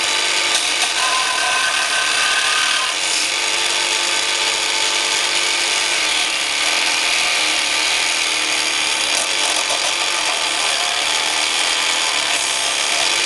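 Small PlayMat tabletop craft jigsaw running steadily under power, its motor whine continuous as it works a piece of wood.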